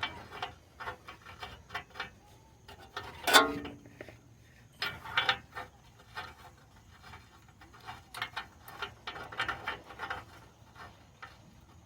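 Irregular small metallic clicks and rubbing as a new rear oxygen sensor is screwed into the exhaust pipe, with one louder clank about three seconds in.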